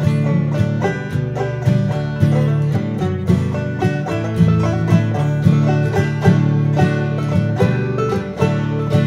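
Background instrumental music in a bluegrass style, with fast picked banjo and guitar.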